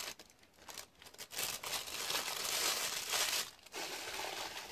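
Rustling and crinkling handling noise close to the microphone, in irregular bursts that are loudest for about two seconds in the middle.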